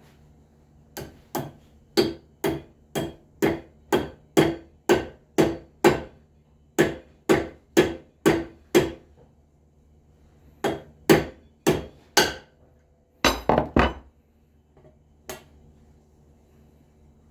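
Hammer blows in treadmill roller bearing work: a steady run of about two strikes a second for some eight seconds, then a short pause, a few more strikes, and a quick flurry of knocks near the end.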